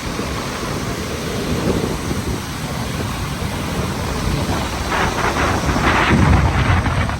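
Steady rushing roar of the Gullfoss waterfall, with wind buffeting the microphone in low gusts that grow stronger about five seconds in.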